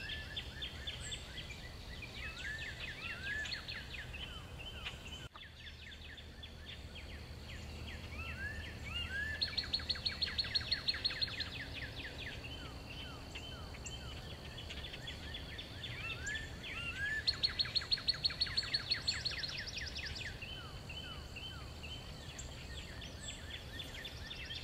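Songbirds singing in the morning: a bird repeats a phrase of rising slurred whistles, and loud fast trills of about seven notes a second come twice, a few seconds apart. A faint steady high tone runs underneath.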